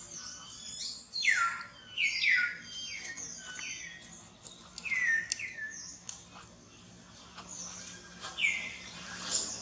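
Baby monkey crying: a string of short, high-pitched calls, each sliding down in pitch, coming in clusters with pauses between.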